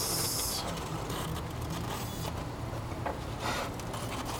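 Foam model airplane being handled and shifted by hand: short scraping and rubbing noises of the foam, the loudest a hissy scrape right at the start, then a few fainter ones, over a steady low hum.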